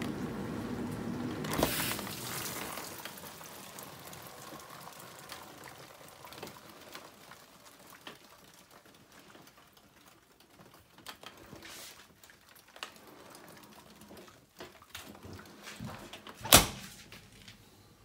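Bosch dishwasher washing, water spraying and sloshing inside the tub. Its door latch clicks open about two seconds in and the washing sound fades away, leaving a few faint clicks. Near the end the door is shut with one loud, sharp latch click.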